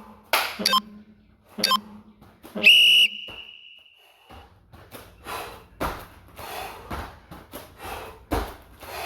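An interval timer beeps once about three seconds in: a loud, steady high tone that hangs on faintly for another second or so, signalling the switch to the next exercise. Around it comes heavy, rhythmic breathing from exertion, about two hard breaths a second in the second half.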